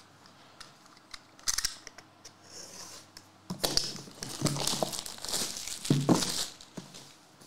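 Plastic shrink wrap being torn off a sealed trading-card box and crinkled in the hand. The first half is mostly quiet with a few light clicks; the tearing and crinkling start about halfway in.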